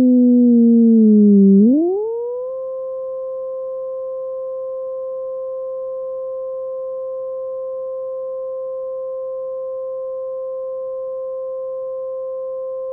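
Synthesizer imitation of a Federal Signal 2001-130 siren, played on two triangle-wave oscillators: a smooth tone slides down, sweeps quickly back up about two seconds in, then holds one steady pitch, like the siren's steady alert signal.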